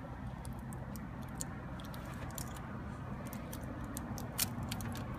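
Scattered small clicks and crinkles from a foil-wrapped chocolate surprise egg being handled, over a low steady hum.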